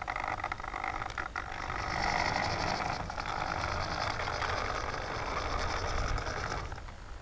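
Antenna tracker's pan servo and turntable whirring as it slews around, with a few clicks near the start, then stopping near the end. It is swinging through the pan servo's end points to keep following the plane.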